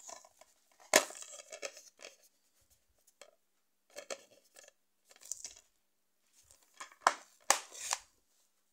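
Plastic DVD keep case handled: a few sharp clicks with rustling and scraping as the case is opened to the disc and then snapped shut, the loudest click about a second in and two more near the end.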